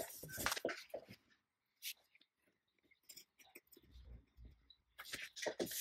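Scissors snipping through faux leather vinyl, with the stiff material rustling as it is handled: scattered short snips and rustles, a pause in the middle, and denser handling near the end.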